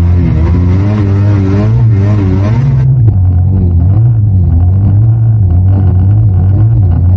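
Snowmobile engine running under load through deep powder, its pitch rising and falling with the throttle, with a hiss over the first three seconds.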